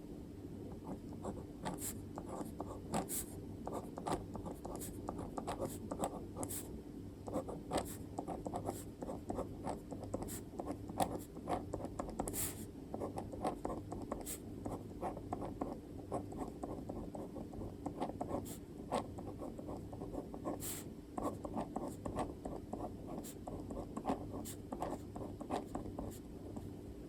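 Handwriting on paper, closely recorded: a continuous run of quick, short scratching strokes with small sharp taps, pausing only briefly between characters.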